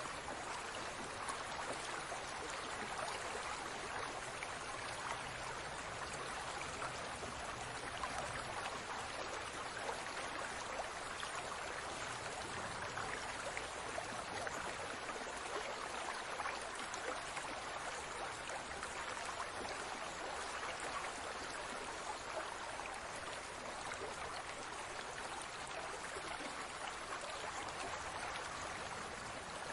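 Aquarium water bubbling and trickling steadily, a dense patter of small bubbles breaking at the surface.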